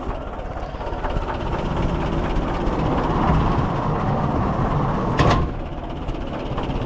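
Oliver 101 Plowmaster garden tractor's engine idling very slowly, about 500 rpm, its separate firing pulses clearly heard. There is one sharp clank a little after five seconds in.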